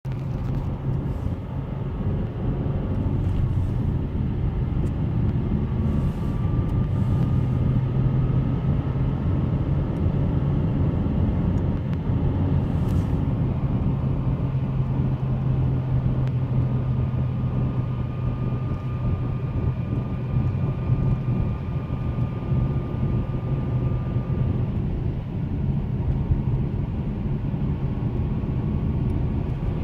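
Inside the cabin of a 2008 Subaru Outback with the 2.5-litre non-turbo flat-four and five-speed manual under way: steady engine and road rumble with a faint high whine that slowly rises in pitch, drops out about 25 seconds in and returns near the end. The owner hears this whine only on the gas, most in third gear, and likens it to a supercharger, though the car has none.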